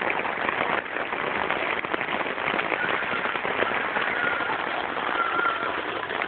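Rain pattering steadily on a tent's fabric, a dense hiss of countless drops.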